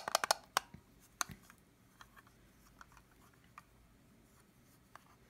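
Small plastic clicks and ticks from hands handling a wireless doorbell's plastic push button: a quick run of clicks in the first half-second, one more about a second in, then only faint scattered ticks.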